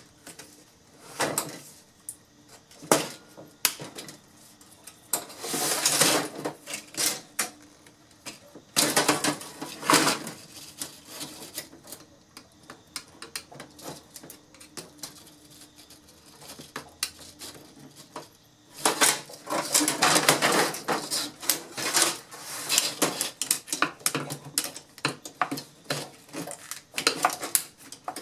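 Irregular clicks, snaps and scraping of plastic and thin metal as an LCD monitor panel is taken apart by hand, a screwdriver prying at the panel's frame. A few longer scraping or tearing stretches come among the clicks.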